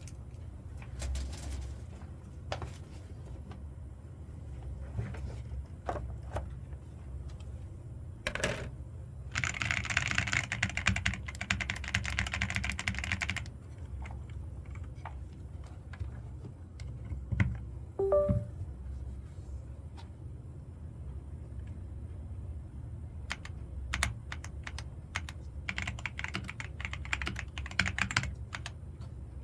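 Keys of an Ajazz AK820 mechanical keyboard being typed on: scattered single keystrokes, with two runs of fast typing, one about ten seconds in and one near the end.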